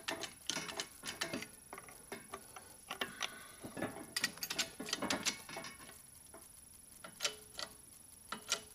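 Irregular metallic clicks and ticks as a 20-ton hydraulic shop press starts pushing a 1/4-inch keyway broach through a pulley's bore. The clicks come in clusters with a short quieter spell just after the middle.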